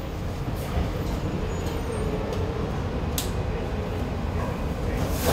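Kawasaki light rail car running on its track, heard from inside the car: a steady low rumble with a faint steady hum and a single click about three seconds in.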